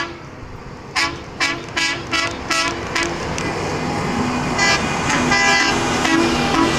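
Horns on passing track maintenance machines sounding a rapid series of short toots at a grade crossing, then more toots over the rising engine noise of the machines as they pass close by.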